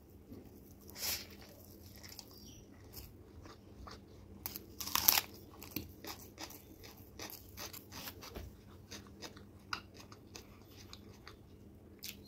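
Close-up eating sounds: crisp papad crunching and being chewed, with many small crackles and a loud crunch about five seconds in.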